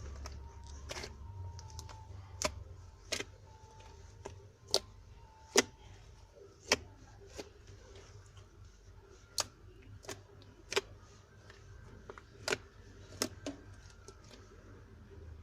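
A large slime being squeezed and pressed, giving about a dozen sharp, irregular pops and clicks as air pockets burst, over a faint low hum.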